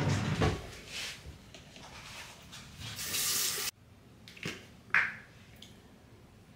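Water running from a tap into a bathroom sink, stopping abruptly a little past halfway; a few short clicks follow.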